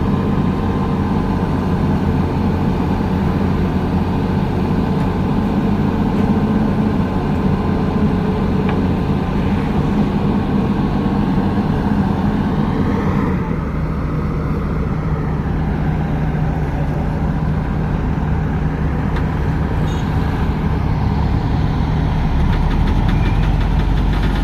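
Heavy diesel machinery engine running steadily while an excavator is unloaded from its transport truck; about halfway through its note drops to a lower, steadier hum.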